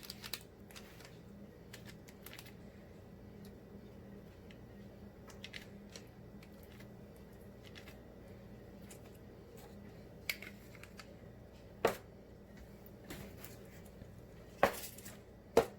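Light scattered clicks and taps of kitchen utensils and containers being handled while sauce is spread on pizza dough, with a few sharper knocks in the last third, over a faint steady low hum.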